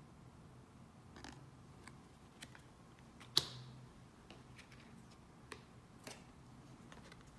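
Tarot cards handled and flipped one by one: scattered faint clicks and taps, with one louder click about three and a half seconds in.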